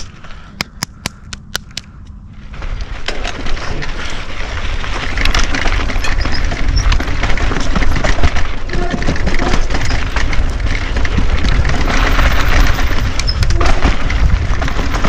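A YT Decoy e-mountain bike rolling down a loose rocky trail. A few sharp clicks come first, then from about two and a half seconds in a loud, rough, continuous rumble of tyres crunching over dirt and rocks as the bike rattles.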